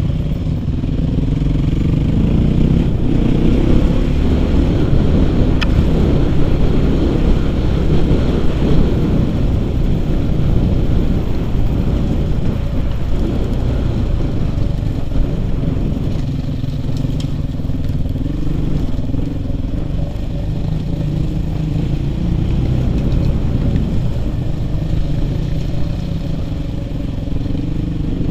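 Suzuki RM-Z450's single-cylinder four-stroke engine running under way off-road, revs rising and falling with the throttle.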